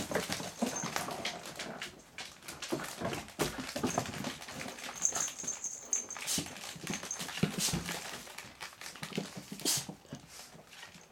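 Doberman puppies playing and scuffling, with many short taps from their claws on a wooden floor mixed with brief puppy noises. It grows quieter near the end.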